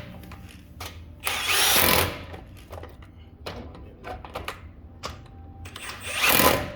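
Handheld drill-type power tool run in two short bursts of under a second, the first about a second in and the second near the end, with light clicks and knocks between.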